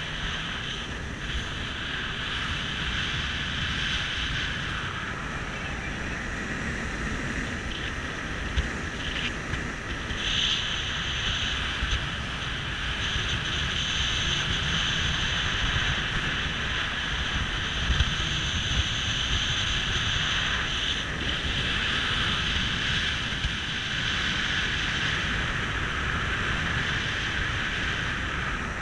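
Small motorboat under way: its engine running steadily, with water rushing past the hull and wind buffeting the microphone.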